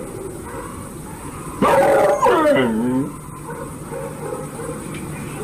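A caged dog with rabies, its swallowing and mouth muscles paralysed, gives one drawn-out cry about a second and a half in, its pitch sliding down, over the steady hiss of old film audio.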